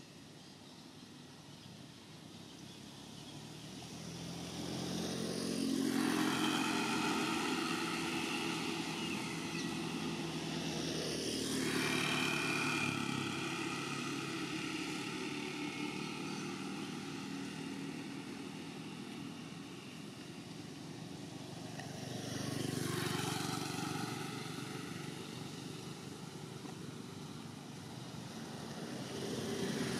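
Engines of passing motor vehicles, swelling and fading as several go by one after another, loudest about six seconds in, again around twelve seconds and twenty-three seconds, and rising again near the end.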